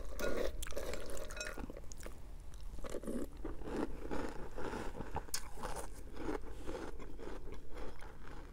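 Close-up chewing of Cap'n Crunch's Christmas Crunch cereal in milk: a run of irregular crisp crunches, with a metal spoon scraping in a glass bowl.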